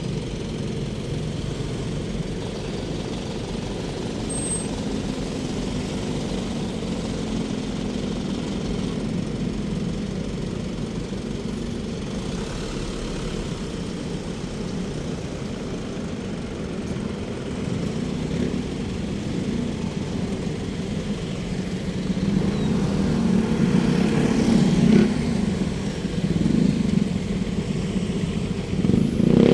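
Road traffic: a steady rumble of cars and motorcycles, louder in the last several seconds as vehicles pass close by.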